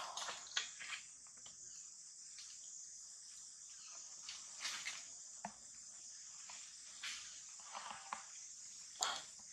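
Steady high-pitched chirring of insects in the undergrowth, with scattered brief rustles and taps from macaques moving over the bark of a fallen trunk; the loudest tap comes near the end.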